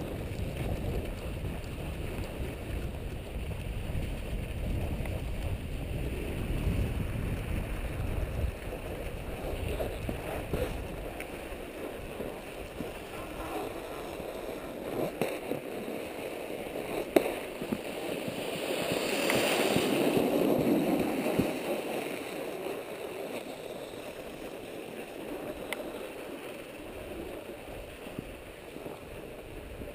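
Wind buffeting the camera's microphone for the first eight seconds or so, then the scrape and hiss of snow as the wearer moves over a groomed ski slope, with a few sharp clicks and a louder swell of scraping about two-thirds of the way through.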